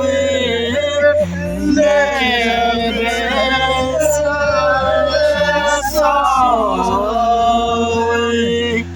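Background music: a male-sung song with instrumental backing and a steady bass line.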